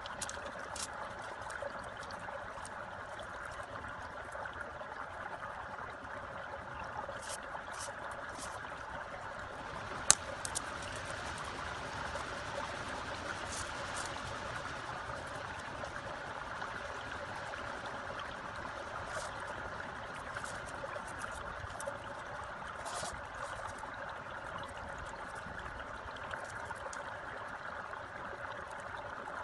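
Bamboo slats clicking and rustling as they are woven with wire into a fish trap, with one sharp click about ten seconds in. Behind it is a steady rushing like running water.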